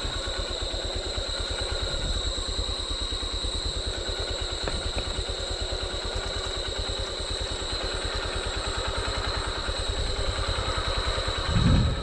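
Single-cylinder engine of a Honda dual-sport dirt bike running steadily at low revs with an even, fast low putter. A brief louder swell comes near the end.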